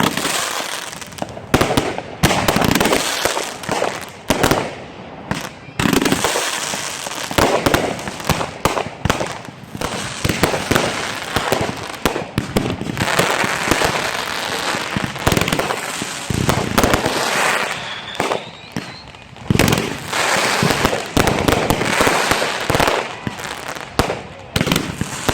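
Consumer fireworks going off in rapid succession: dense crackling with many sharp bangs, one after another and without pause.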